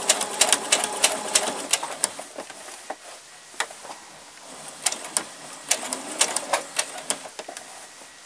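Brother Innov-is 10A computerised sewing machine stitching slowly, each stitch a distinct click. It runs at about five stitches a second for the first two seconds, pauses, then stitches again in shorter start-stop spurts.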